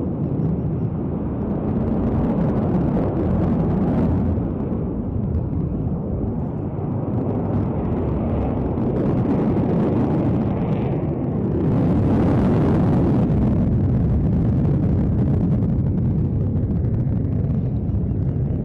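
Jet noise from an F-22 Raptor's two Pratt & Whitney F119 turbofans during a display manoeuvre: a deep, steady noise that grows brighter and a little louder for a second or two about twelve seconds in.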